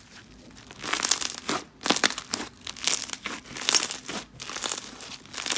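Fluffy bingsu bead slime being squeezed, stretched and folded by hand, giving off sizzly crackling in repeated bursts about once a second as the beads and air pockets pop.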